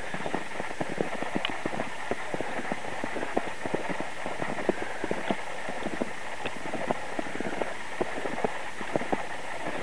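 Footsteps crunching through fresh snow: a quick, uneven series of soft crunches, a few each second, over a steady faint hiss.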